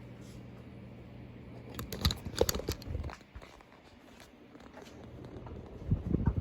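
Ceiling fan motor humming steadily, then a run of clicks, crunches and knocks about two seconds in as the hum fades, with more knocks near the end.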